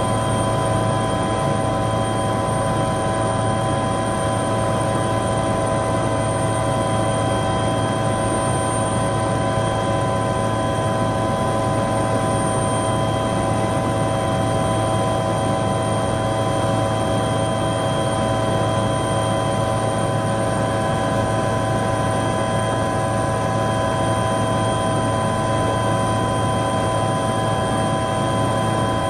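Helicopter in level flight heard from inside the cabin: a steady drone of engine and rotor with several high whining tones over it, unchanging throughout.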